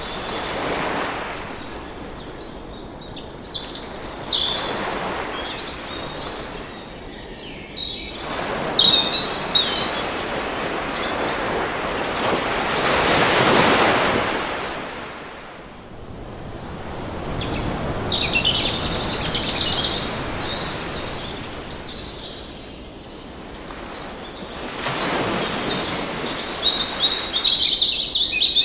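Ocean surf washing in and out, its rush swelling and fading every few seconds, with birds chirping and trilling in short high phrases over it.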